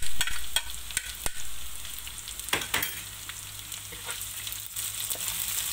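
Sliced chillies tipped into hot oil in a wok set off a loud sizzle just after the start. The frying then hisses on steadily while a wooden spatula scrapes and stirs the chillies, shallots, garlic and dried-shrimp sambal, giving scattered clicks and scrapes.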